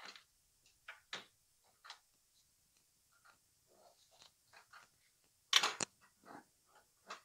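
Socket wrench on a long extension being fitted to and worked on the exhaust manifold nuts of a Honda Civic engine: short, irregular metal clicks and scrapes, with the loudest clatter a little past halfway through.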